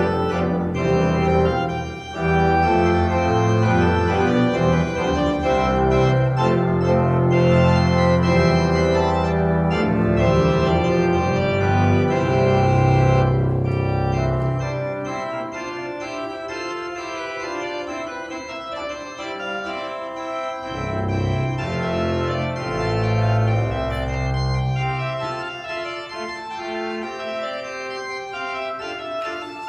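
Organ music playing sustained chords over a moving bass line; about halfway through the bass drops away and the music goes softer, with the bass coming back briefly for a few seconds.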